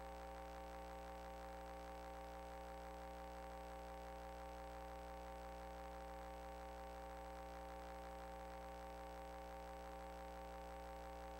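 Faint, steady electrical hum made of several held tones, with no other sound.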